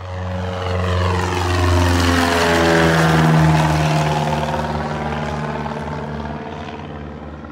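Single-engine propeller light airplane passing low overhead. Its engine swells to a peak a few seconds in, then fades, the pitch dropping as it goes by.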